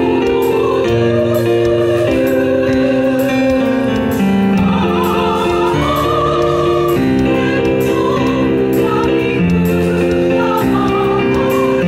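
Women's choir singing in harmony, holding sustained chords that change every second or two.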